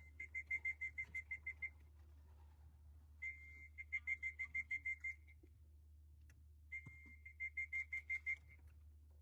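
A high whistle, heard three times: each time a brief held note, then a quick run of short repeated notes at the same pitch.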